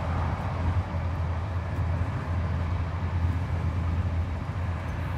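Train carriage running noise: a steady low rumble with an even hiss of noise above it.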